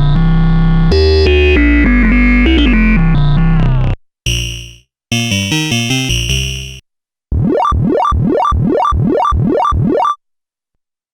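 Korg monologue analog monophonic synthesizer playing factory presets in turn. First comes a busy sequenced pattern over a deep bass line that breaks off about four seconds in. Then come two short phrases of fading notes, and then a run of quick rising pitch sweeps, about three a second, that stops about ten seconds in.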